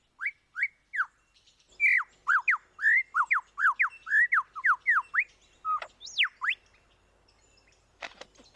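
Superb lyrebird singing: a rapid string of loud, clear whistled notes, each sweeping down in pitch. The notes come a few at a time at first and then in a fast run of about fifteen.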